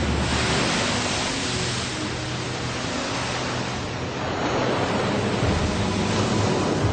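A long, loud rush of splashing water as a great white shark breaches and crashes back into the sea, cutting in and out abruptly. Faint music runs underneath.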